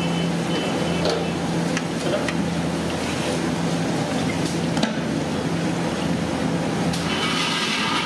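Battered green chillies (mirchi bajji) deep-frying in a large black wok of hot oil, with steady sizzling. A few short metal clinks come from the skimmer against the pan, over a steady low hum.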